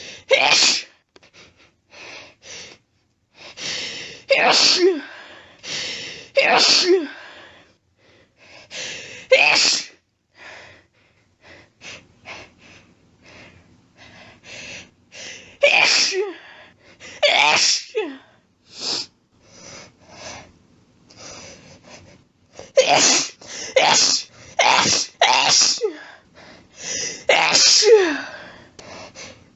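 A person sneezing over and over: about a dozen loud sneezes with short catches of breath between them, coming in a quick run of four or five near the end.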